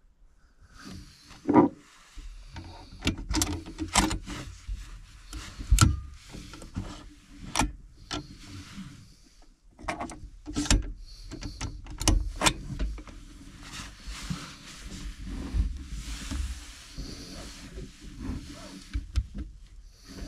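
Handling noise from a Tikka T3x TAC A1 bolt-action rifle on its bipod: irregular sharp clicks and knocks of its stock, grip and action being worked and adjusted, amid rustling and shuffling.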